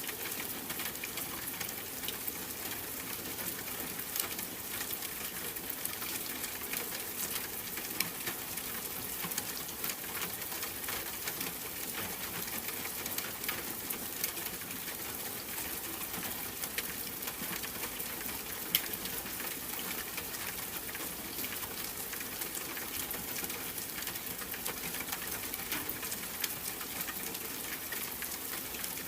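Steady rain, a constant hiss with many small drop ticks scattered through it.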